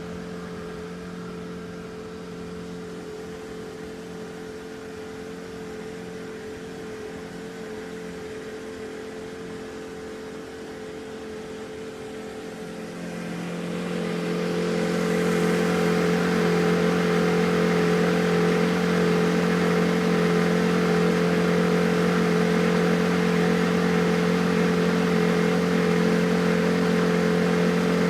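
A boat's engine running steadily at a constant pitch. About halfway through it grows much louder and fuller, then holds at that level.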